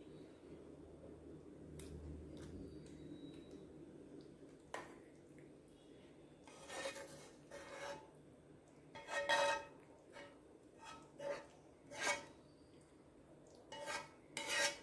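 A spatula scraping and knocking against a frying pan and a glass baking dish as sauce-coated chicken pieces are spooned across. The scrapes come in several short strokes, mostly in the second half.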